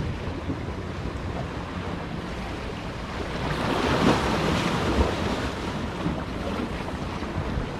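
Ocean surf on the shore, with one wave swelling and washing in about halfway through, and wind buffeting the microphone.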